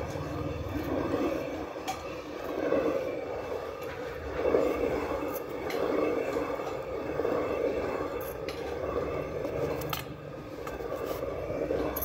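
Hand-turned stone quern (jaate) grinding roasted horse gram into flour: a steady grinding rumble of stone rubbing on stone. It swells and eases in a slow rhythm as the upper stone is turned, with a few light clicks.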